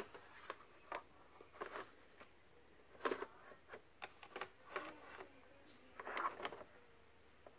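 Soft, scattered clicks and clinks as steel roller lifters in their plastic guide trays are set by hand into an aluminium foil pan of engine oil, with small liquid sounds as they go under.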